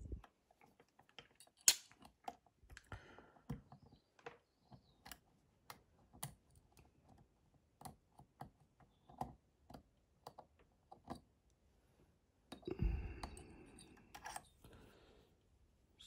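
Faint, irregular metallic clicks and ticks of a dimple pick and tension tool working the pins inside an ABS Avocet pin-in-pin dimple lock cylinder, with one sharper click about two seconds in. Near the end a louder stretch of scraping and handling noise lasts a second or two.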